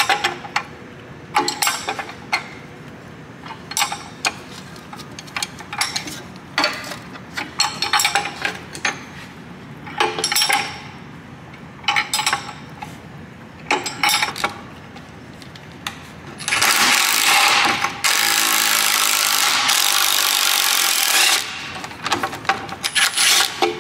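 Hand wrenches clicking and clinking in short bursts as they turn the bolt of a bolt-type bushing press tool, then a Maximum cordless impact wrench hammers on the bolt for about five seconds, drawing the old rear lower knuckle bushing out of the knuckle. A few more clicks follow near the end.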